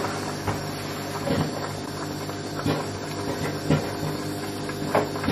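Flour dumplings dropped one at a time into a pot of boiling water, a short plop every second or so, over a steady low hum.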